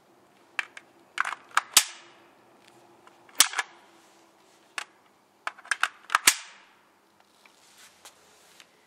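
Sharp metallic clacks and snaps from a Real Sword Type 56 airsoft electric rifle, an AK-pattern replica, coming in three clusters with a short ring after the loudest ones.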